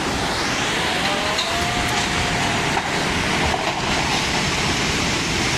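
Floodwater rushing through a city street: a loud, steady rush of water.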